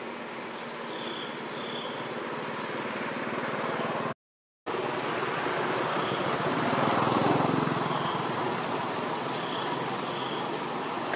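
Outdoor ambience: a steady rushing noise that swells a little around the middle. Faint short high chirps come every second or two, and the sound cuts out for about half a second a little past four seconds in.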